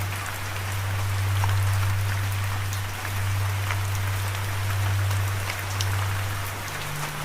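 Steady rain with scattered drops ticking, over a low steady drone that swells and fades and steps up in pitch near the end.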